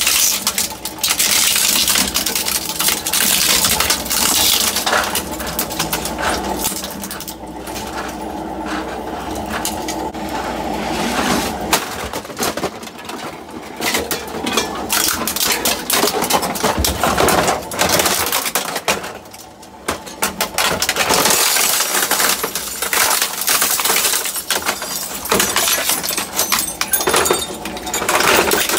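Twin-shaft industrial shredder's rotating cutter discs crunching and cracking through plastic printer casings and an HP Scanjet 8200-series flatbed scanner, a dense run of snaps and clinks over the steady drone of the machine.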